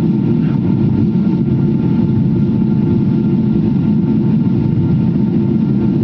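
Jet airliner cabin noise: a steady low rumble of engines and rushing air heard inside the passenger cabin, with a faint steady whine above it.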